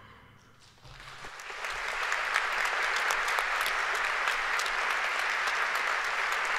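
A concert band's final chord dies away in the hall's reverberation, then audience applause starts about a second in and builds quickly to steady clapping.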